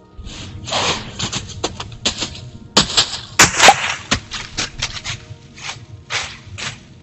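Deer moving quickly through dry fallen leaves: irregular crunching and rustling footfalls, loudest about three to four seconds in.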